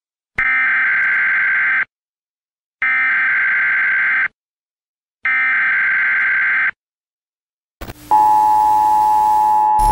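Emergency Alert System broadcast signal: three harsh electronic data bursts of about a second and a half each, evenly spaced. About eight seconds in, static hiss comes in, followed by the steady two-tone attention signal.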